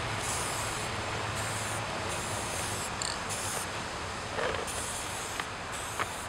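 Aerosol spray-paint can hissing in several short bursts as lines are sprayed onto a wall.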